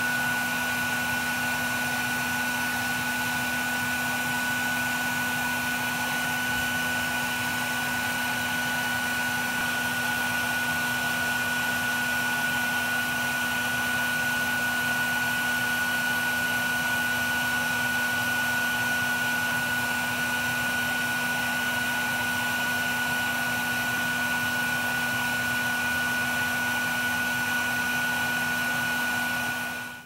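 Bee vacuum running steadily, a constant motor whine over a rush of air, cutting off abruptly at the very end.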